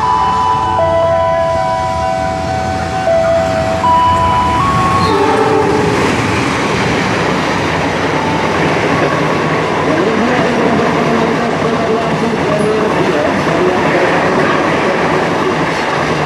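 A few seconds of held pitched notes that change in steps. Then, from about five seconds in, the loud rushing rumble and rail clatter of a diesel-hauled express passenger train passing at speed on a through track.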